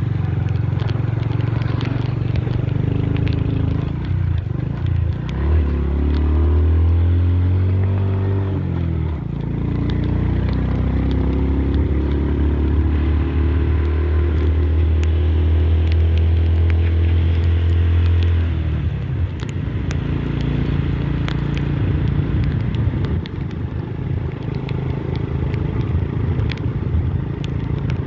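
Motorbike engine running as the bike is ridden, its note rising and falling with speed and loudest for about thirteen seconds in the middle, over a steady rush of road and wind noise with scattered small clicks.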